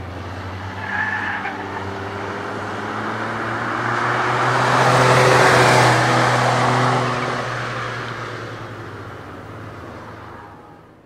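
Engine of a small Smart race car pulling hard on a hill-climb course. It grows louder as the car approaches, is loudest about halfway through as it passes, then fades as it drives away.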